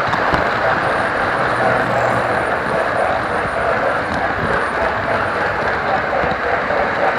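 Model steam train running on its track, heard up close from a car behind the tender: a steady whirring rumble of the locomotive's motor and the wheels on the rails.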